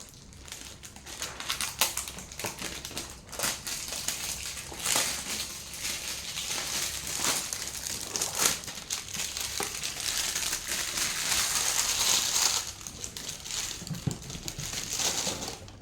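Packaging being handled and unwrapped: cardboard and wrapping crinkling and crumpling, with many small crackles and clicks, busiest through the middle.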